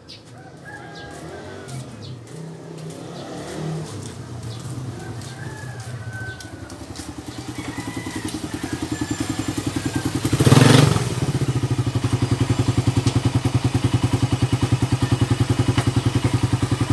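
Suzuki Raider 150's single-cylinder four-stroke engine running on a test run after repair. It grows steadily louder, gives a brief rev about ten seconds in, then idles steadily with an even pulse.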